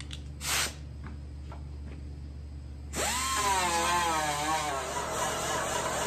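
Pneumatic die grinder with a Roloc disc starting up about three seconds in, its whine rising and then wavering under a hiss of air as it scuffs the plastic grille around the old bolt holes so that filler will bite. A short hiss of air comes about half a second in.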